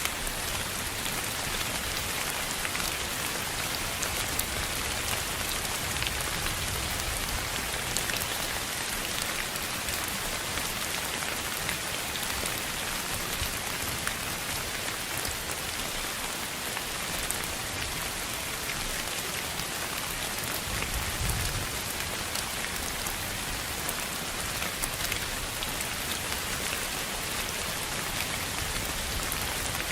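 Steady sleep-noise track that sounds like rain: an even hiss, brightest in the upper range, with many small sharp ticks scattered through it.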